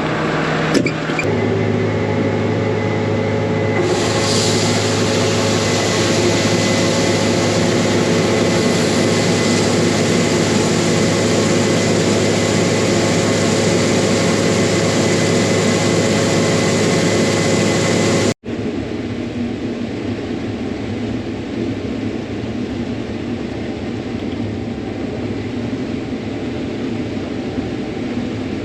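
Combine harvester running steadily with a low engine hum and machinery noise. There is a single knock about a second in, and the sound grows brighter and hissier about four seconds in. It breaks off abruptly about two-thirds of the way through and is followed by a quieter, steadier running sound.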